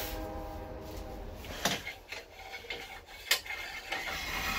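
Miter gauge of a router table being handled and adjusted: a sharp click about a second and a half in and a louder one a little past three seconds, with lighter rattling between.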